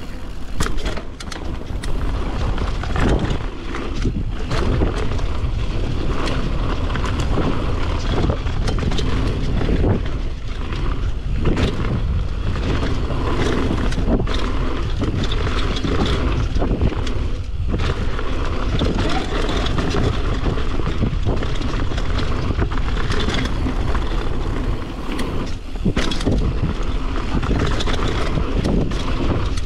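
Downhill mountain bike descending a dirt trail: tyres rolling over dirt and the bike rattling and knocking over bumps, with constant wind rush on the camera's microphone.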